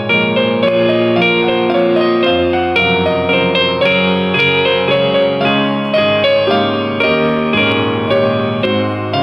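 Background piano music: a gentle melody over chords, notes struck several times a second.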